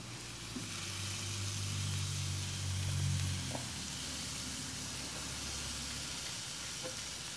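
Meat sizzling on a barbecue grill grate, a steady hiss, with a low hum underneath in the first half that fades out about halfway through.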